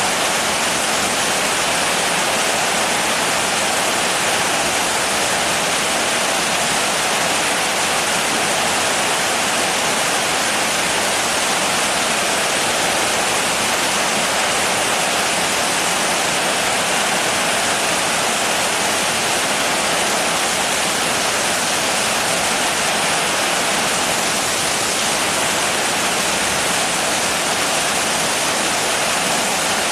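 Steady, heavy rainfall: a dense, even hiss with no separate drops or changes.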